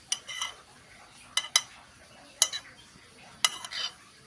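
A spoon clinking against a plate while eating: about five sharp, ringing clinks, some followed by a brief scrape.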